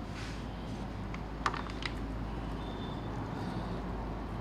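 A few light clicks of small metal clutch parts, the clutch springs, being handled, two or three close together about a second and a half in, over a steady low hum.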